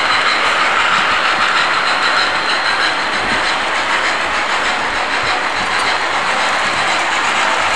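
MTH RailKing Blue Comet O-scale model steam train running on three-rail track: a steady hiss of its electronic steam sounds mixed with the rumble of its wheels on the rails.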